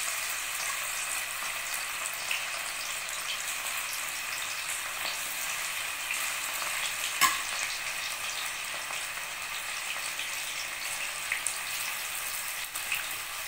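Cornflour-coated chicken pieces deep-frying in hot oil in a wok: a steady sizzling hiss with scattered crackles as more pieces are dropped in, and one sharp pop about seven seconds in.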